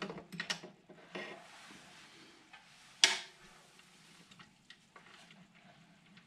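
Small clicks and light clatter of hand tools and parts being handled while working on an e-bike's battery holder, with one sharp clack about three seconds in that is the loudest sound.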